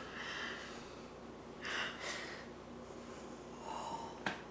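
A man breathing sharply through his nose a few times while drinking from a mug, with a small click near the end.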